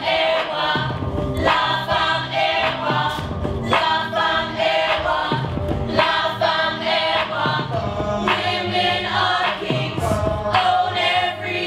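Music: a group of voices singing together, choir-like, over a low bass line.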